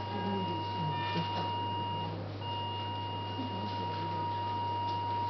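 Steady electronic tone from operating-room equipment, dropping out briefly about two seconds in, over a constant low hum and faint murmured voices.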